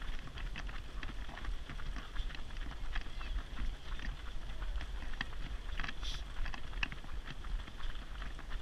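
Footfalls of a pack of runners on tarmac, many quick uneven taps and slaps, over a steady low rumble.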